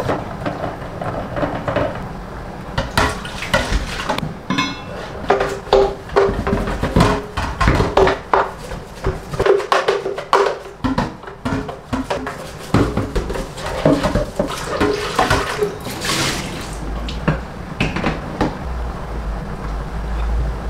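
Washing up at a stainless-steel kitchen sink: dishes, utensils and a glass blender jar clink and clatter against each other and the sink in many sharp knocks, with water splashing now and then.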